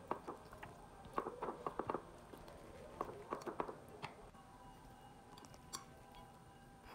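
Faint clicks, taps and soft wet scraping of a utensil serving eggplant chili relish into a glass food container, in a few short clusters. A faint steady hum comes in about halfway through.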